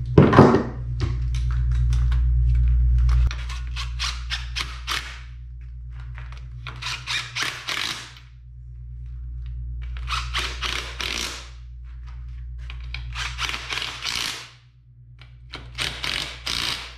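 DeWalt cordless driver running in bursts as it drives the tail shaft housing bolts into a transfer case: a string of quick short pulses at first, then four longer runs of about a second each. A steady low hum runs underneath.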